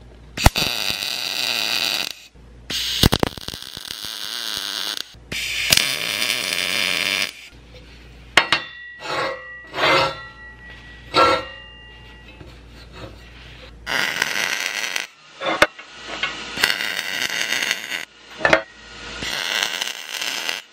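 MIG welder tacking and welding 1/8-inch steel plate: several bursts of steady crackling hiss, each one to three seconds long. In the middle, steel parts clink and ring briefly as a plate is set onto the box.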